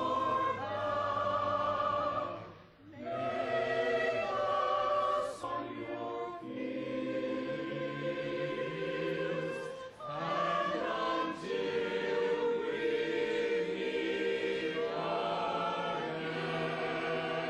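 Choir singing a slow piece in long held notes, the voices wavering with vibrato; the singing breaks off briefly about three seconds in and again about ten seconds in.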